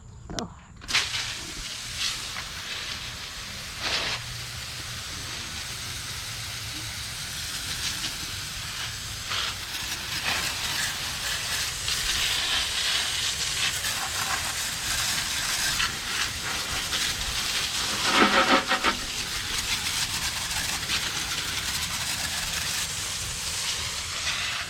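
Small chainsaw running and cutting through old branches, a steady noisy rasp that starts suddenly about a second in, with a few knocks, and stops just before the end.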